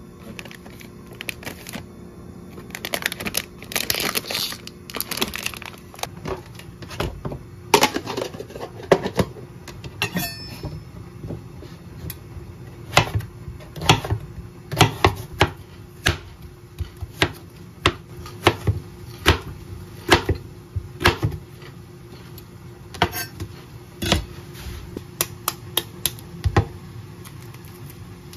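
Plastic instant-ramen packets crinkling as they are handled, then a kitchen knife chopping cucumber on a cutting board: a long run of sharp taps, a little over one a second.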